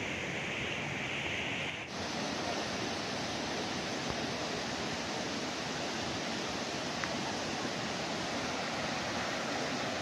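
Waterfall and a fast, swollen river rushing, a steady noise of churning water. The sound shifts abruptly just under two seconds in, as at a cut between shots.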